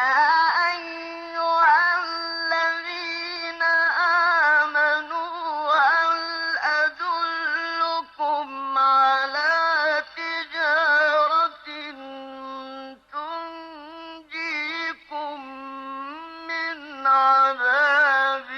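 Solo male voice in melodic Quran recitation, holding long ornamented notes in a high register. The voice comes in sharply out of silence, with brief breath pauses between phrases.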